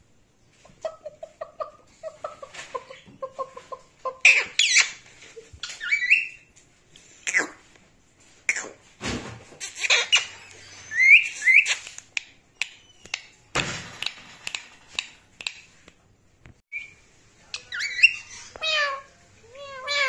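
Indian ringneck parakeet calling: a run of short, low notes at first, then loud harsh squawks mixed with clicks, and a quick string of falling chatter near the end. Two knocks come around the middle.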